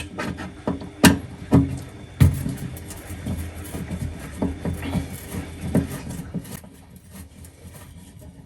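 Screwdriver clicking and knocking on sheet metal inside an oven cavity as screws holding the fan-oven heater element are undone: a few sharp clicks in the first couple of seconds, then lighter scattered ticks and scraping that fade toward the end.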